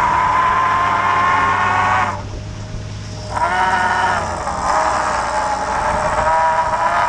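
Hydraulic crab pot hauler whining as it hauls a pot line up through the davit block. The whine cuts out about two seconds in, comes back over a second later with a rising pitch, and wavers as the hauling speed changes.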